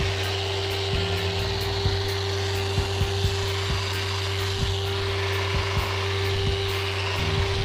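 Festool Rotex random-orbital sander running steadily, its polishing pad rubbing on the edge of a vanity top: an even motor whine with a rubbing hiss.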